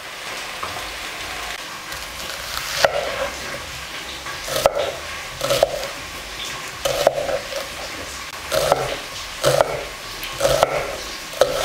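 Knife cutting through an onion onto a wooden cutting board: about eight knocks, roughly one a second, starting a few seconds in. A steady sizzle of potatoes and mushrooms frying in oil runs underneath.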